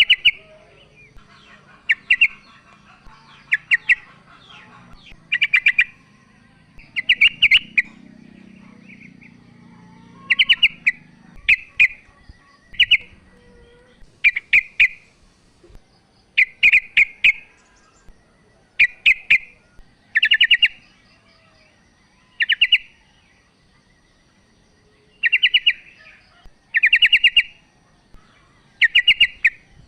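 Female yellow-vented bulbul (trucukan) calling: short chattering bursts of quick repeated notes, repeated every couple of seconds.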